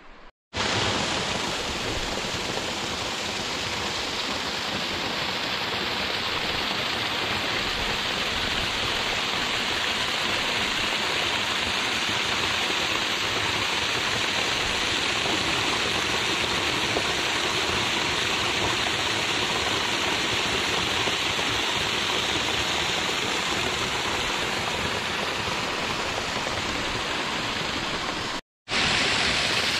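Waterfall: a steady, loud rush of falling water. It cuts out abruptly for a split second near the start and again about a second before the end.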